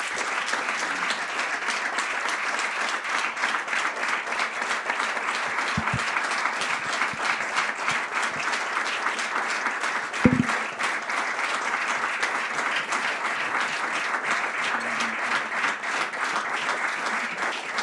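Audience applauding steadily, a dense patter of many hands clapping. A single brief low knock sounds about ten seconds in.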